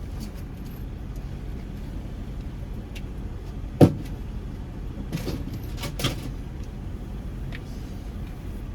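Car idling with a steady low rumble. A single sharp thump comes about four seconds in, followed by a couple of softer knocks.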